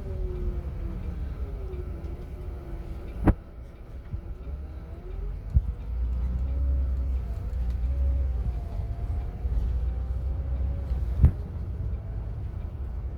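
Inside a moving coach: a low engine and road rumble with a faint whine that rises and falls in pitch. Two sharp knocks, about three seconds in and near the end, are likely rattles or bumps in the cabin.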